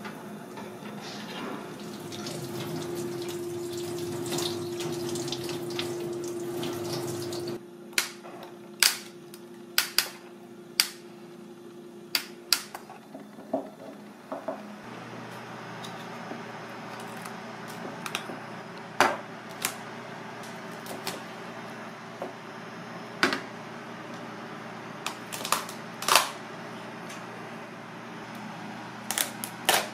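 Steady hiss with a low hum from a steamer pot on a gas burner. About eight seconds in it cuts off and gives way to a run of sharp cracks and knocks as a steamed crab's legs and shell are snapped off and set down on a plastic cutting board.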